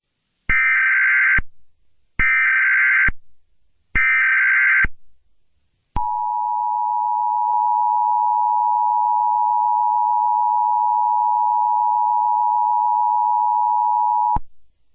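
Emergency Alert System tones: three one-second bursts of SAME digital header data, evenly spaced, then the two-tone EAS attention signal, a steady beep held for about eight seconds before it cuts off.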